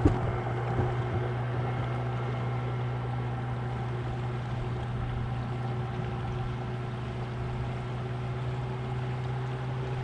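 9.9 hp outboard motor running at a steady speed, a constant low hum with a whine above it, as the boat moves along under power.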